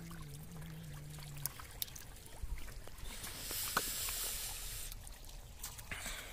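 Shallow muddy water splashing and trickling, with scattered small splashes from stranded small fish and hands working in the mud. A louder stretch of splashing comes about three seconds in.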